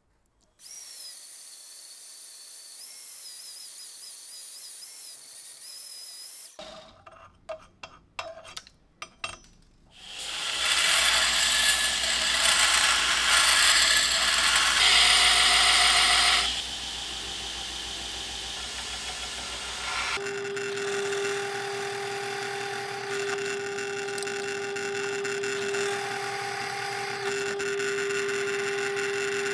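A high hiss with a wavering whistle, then a run of sharp knocks. A belt grinder then runs loud with the old-file steel blank held against the belt. About nine seconds from the end it gives way to a benchtop drill press running with a steady hum as its bit bores a hole through the blank.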